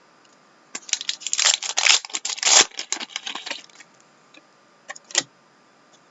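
Crinkling and tearing of a foil hockey-card pack wrapper: a dense burst of crackles lasting about three seconds, then two short crackles near the end.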